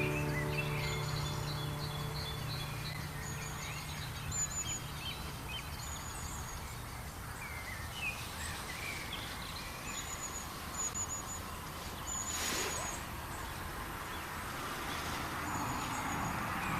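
Small birds singing, with short high chirps repeated every second or two and some lower twittering, over a steady outdoor background hiss.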